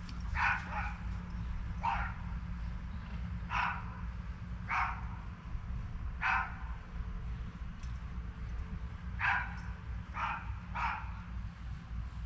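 A dog barking: about nine short barks at irregular intervals, with a longer pause in the middle, over a steady low hum.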